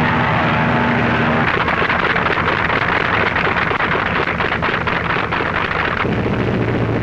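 Racing speedboat engines running at speed. A steady drone turns into a harsh, crackling noise about a second and a half in, then drops to a lower steady hum near the end.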